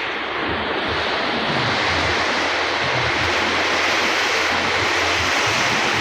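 Heavy typhoon rain falling steadily as a dense hiss, with a low, uneven rumble of wind underneath.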